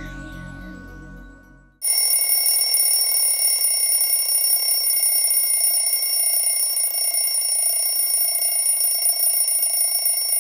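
Intro music fades out, then about two seconds in an alarm clock bell starts ringing loudly and keeps ringing without a break.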